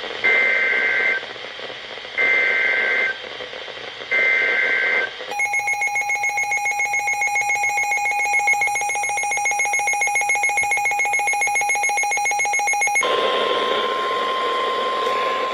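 Emergency Alert System tones on the radio: three short bursts of the SAME data header's warbling two-tone screech, then about eight seconds of the steady, fluttering two-tone EAS attention signal. Near the end it switches to a single steady weather-radio alert tone over radio hiss, signalling a warning about to be read.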